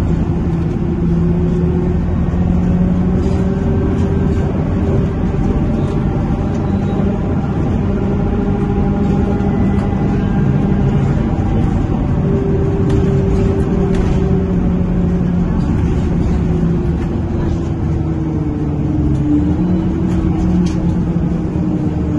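Inside a Scania K230UB diesel bus under way: a steady loud drone with several humming tones that hold and drift slightly in pitch. The humming is the bus's unusually loud radiator cooling fan.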